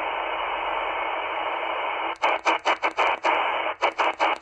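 Static hiss from an XHDATA D-808 shortwave receiver tuned in upper sideband between signals on the 20 m amateur band. About two seconds in, the hiss starts cutting out and back in several times a second as the frequency is stepped up with the tuning knob, the receiver muting on each step.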